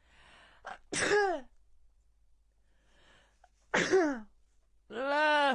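A young woman sneezing repeatedly: sharp sneezes about a second in and again near four seconds, each dropping quickly in pitch, then a longer voiced sneeze-like sound near the end.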